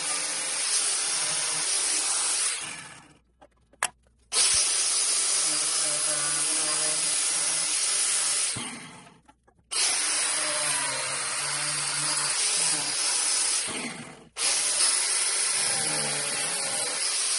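DeWalt angle grinder with a cut-off wheel cutting through PVC pipe, a steady high grinding whine that dies away and starts again abruptly twice, with a brief break near the end.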